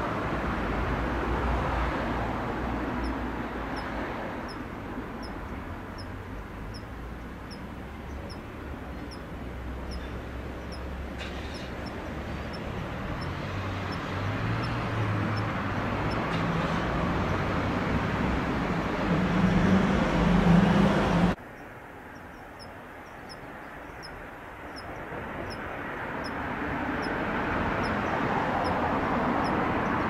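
Kanetataki (Ornebius kanetataki) scaly cricket singing: short, high ticks about twice a second, its late-autumn song grown weak with the cold. Behind it runs a louder steady rush of background noise that drops suddenly a little over two-thirds of the way in, while the ticks go on.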